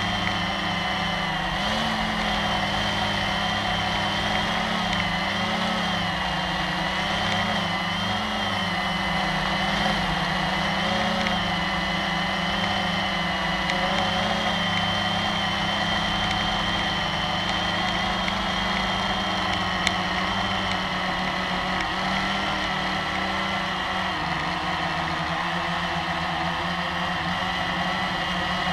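Blade 350 QX quadcopter's four brushless electric motors and propellers whining steadily in flight, heard from the camera it carries. The pitch wavers slightly as the motors adjust their speed.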